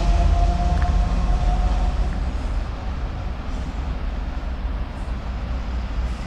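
British Rail Class 70 diesel-electric locomotive running light engine and pulling away, its V16 diesel engine giving a heavy low rumble with a steady whine. The whine fades out about two seconds in, and the rumble grows fainter as the locomotive draws off.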